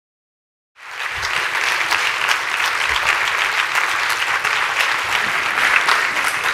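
Audience applauding steadily, a dense patter of many hands clapping, starting abruptly about a second in.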